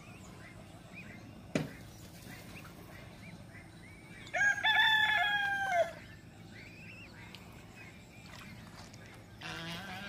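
A rooster crows once, about four seconds in, a loud call lasting about a second and a half. Faint high peeping of ducklings and chicks runs underneath, with a single sharp knock early on.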